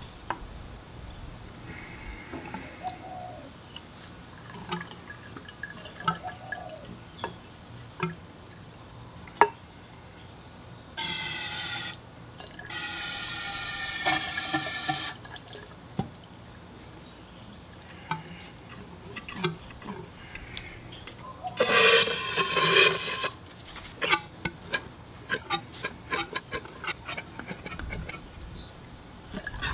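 Fork oil pouring in three short spells of a few seconds each, the last and loudest about two-thirds of the way through, with light clicks and knocks of handling in between.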